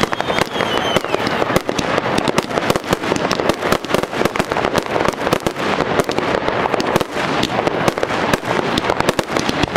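Aerial fireworks going off in a rapid, continuous string of bangs and crackles, many bursts overlapping with no pause.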